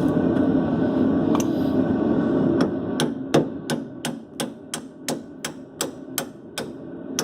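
Hammer blows on the rusted lower shock mounting bolt of a 1990 Dodge Dakota, driving it out: a steady run of sharp metallic strikes, about three a second, starting a couple of seconds in. Before the hammering starts there is a loud steady rumble.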